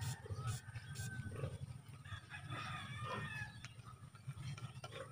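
A rooster crowing, heard over a steady low rumble.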